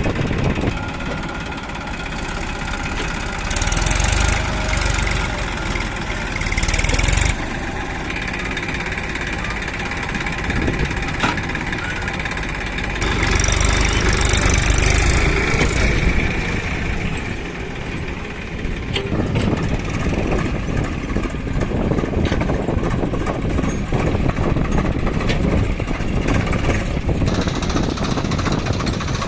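Heavy diesel engines of a backhoe loader and tractors running steadily, with two louder surges at about 4 and 13 seconds in.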